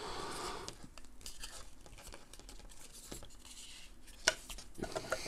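Faint handling noise from a plastic webcam and its cable being turned over in the hands: light rustling and small plastic clicks, with a sharper click about four seconds in and a few more just before the end.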